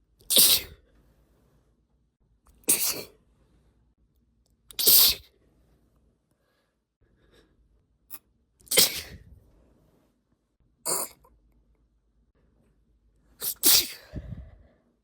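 A woman sneezing over and over, induced sneezes coming about every two seconds, six in all, the last a quick double near the end.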